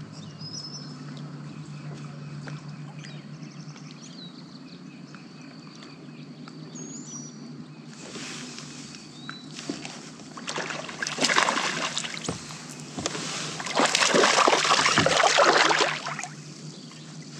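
Water splashing hard in two bouts beside a kayak, about ten seconds in and again around fourteen seconds, the second longer and louder, over a steady low hum: a hooked bass thrashing at the surface before it comes off.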